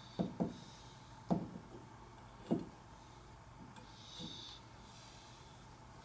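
Ceiling fan coasting down with its power off, barely audible under a steady low hum. Four short, soft knocks fall in the first three seconds.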